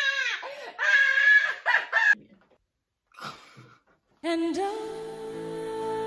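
Two girls laughing hard together for about two seconds, then a short near-silent gap, then background music with sustained notes starting about four seconds in.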